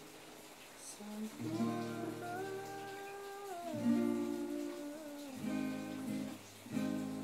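Acoustic guitar chords being strummed under a wordless hummed vocal line. The voice holds long notes and slides down in pitch twice, and a fresh chord is strummed near the end.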